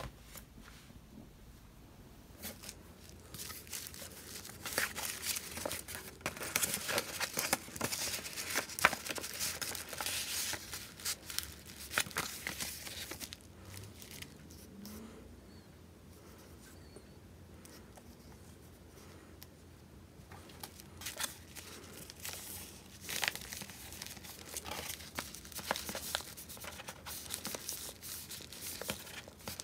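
Kraft paper envelope and paper being handled, rustling and crinkling in two busy bouts with a quieter stretch in the middle.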